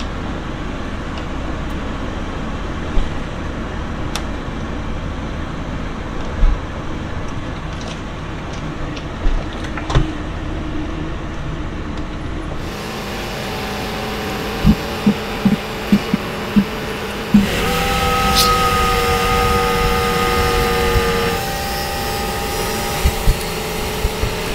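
Car cabin noise while driving: a steady low rumble of tyres and engine with scattered knocks and rattles from bumps.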